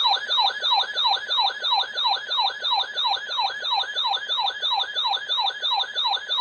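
Electronic emergency-alert siren tone: rapid falling sweeps, about three a second, repeating evenly without a break. It serves as the alert signal ahead of a severe thunderstorm warning.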